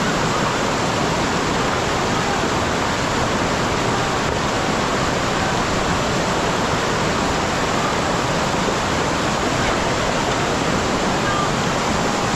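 Steady, loud rush of water, a constant even roar with no breaks.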